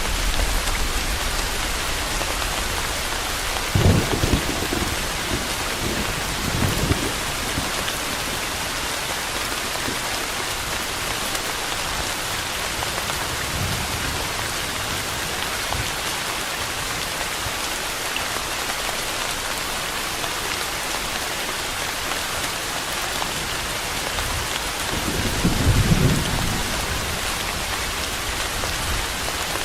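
Steady heavy rain falling on a surface, an even hiss, with low rumbles of thunder about four seconds in, again around seven seconds, and a longer, louder roll near the end.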